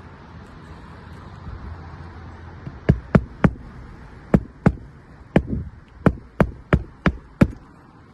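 Nails being driven down into asphalt roof shingles during a repair: about eleven sharp strikes in quick groups, starting about three seconds in.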